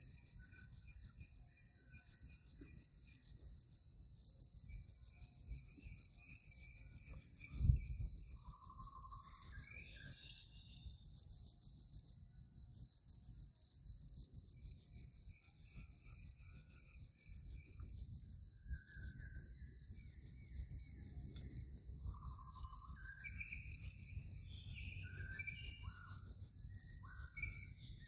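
An insect chirping in a fast, even, high-pitched pulse that pauses briefly every few seconds, with short bird calls in between. A single low thump comes about eight seconds in.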